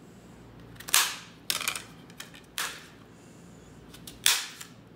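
Kitchen knife chopping peeled pumpkin into cubes, each cut ending in a sharp knock of the blade on a thin cutting board: four clear chops at uneven intervals, with a few lighter taps between.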